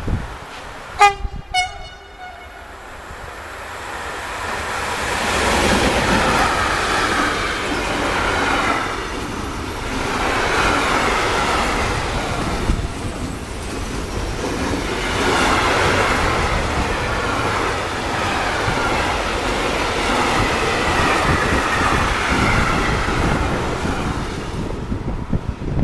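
Two short horn blasts from an approaching freight train, about a second and a half in. Then a freight train of tank and box container wagons passes close by, its wheel and rail noise swelling and fading in waves as the wagons go past.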